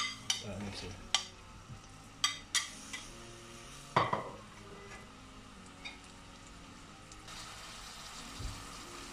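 A metal spoon clinking and tapping against a ceramic plate and a steel saucepan as whole spices are scraped into the pan, with one louder knock about four seconds in. Near the end a faint sizzle of onions frying in oil, with the spoon scraping through them.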